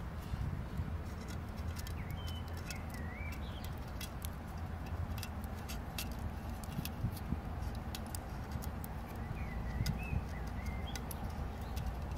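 Small irregular clicks and crackles of the crackled crust on a smoked raku urn being picked off by fingers. Birds chirp briefly twice in the background over a steady low rumble.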